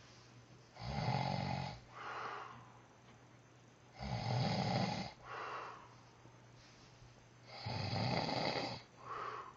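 A man snoring heavily in sleep: three long, loud snores about three and a half seconds apart, each followed by a shorter, softer sound.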